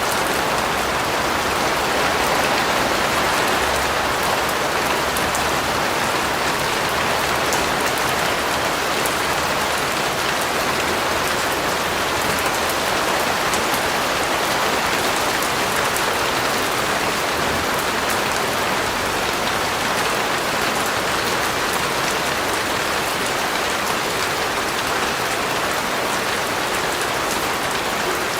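Steady rain falling and pattering on a surface, an even hiss of many drops with faint individual drop ticks.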